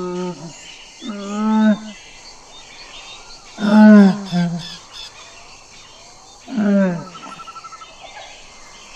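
Camel calling: three drawn-out moaning calls, each lasting up to a second, spaced a few seconds apart. Birds chirp faintly behind them, and a short rapid trill follows the last call.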